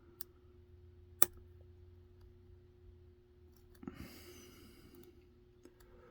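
Lock pick working the pins of a Matlock padlock under a pry-bar tension tool: sparse small metallic clicks, the sharpest about a second in and another pair around four seconds in followed by a brief scrape, as the picker works to set the pins.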